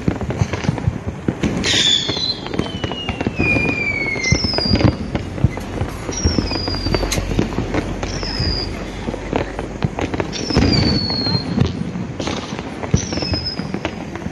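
Diwali fireworks and firecrackers going off all around the city: a dense, continuous crackle of bangs and pops, with high whistles that fall in pitch every couple of seconds.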